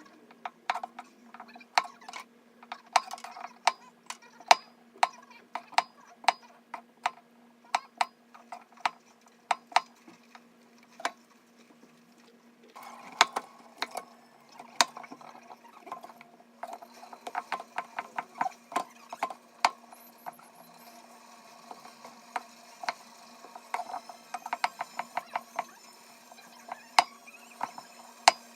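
Kitchen knife chopping vegetables on a cutting board: a string of sharp knocks, irregular, with quick runs of fast chops in places, over a faint steady low hum.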